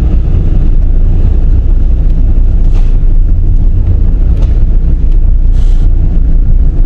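Steady low rumble of a vehicle driving slowly on a paved road, heard from inside the cab.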